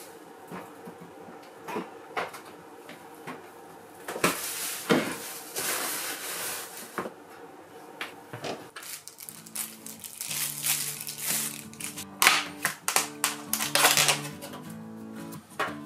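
Household handling noises: rustling and clattering in a kitchen, then the crackle and clicks of plastic food packaging being opened. Light background music comes in about two-thirds of the way through.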